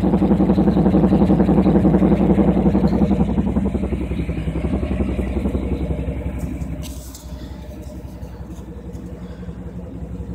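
Exhaust of a 1994 Chevy C1500's 5.7-litre 350 throttle-body-injected V8 running steadily at idle, a rapid even pulsing burble. It grows fainter from about three seconds in and drops again around seven seconds.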